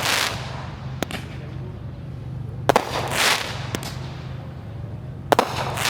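Aerial fireworks shells bursting: sharp bangs a second or two apart, each followed by crackling. A steady low hum runs underneath.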